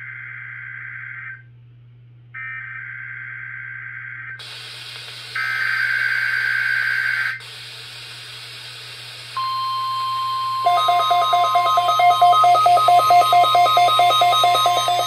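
NOAA Weather Radio Required Weekly Test coming in: three short bursts of buzzy SAME digital header data, then a steady 1050 Hz warning alarm tone. A little over ten seconds in, the weather radio receivers start rapid, loud beeping alerts on top, showing they have recognised the test.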